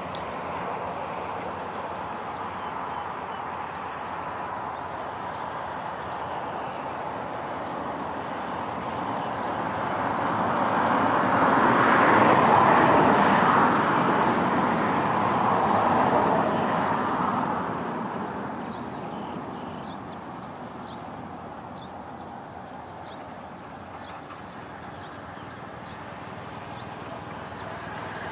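Steady outdoor engine and traffic noise, with a vehicle passing near the microphone: its noise swells over several seconds around the middle and then fades away.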